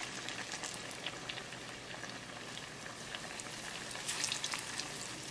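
Battered salmon pieces deep-frying in vegetable oil at 375 °F in an electric deep fryer: a steady sizzling hiss with scattered crackles and pops. About four seconds in the crackling gets louder as another piece is lowered into the oil.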